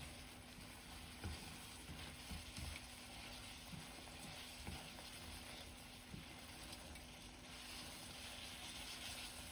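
Faint sizzling of sauce-coated instant noodles in a frying pan as they are stirred with chopsticks, with a few soft knocks; the hiss grows a little stronger near the end.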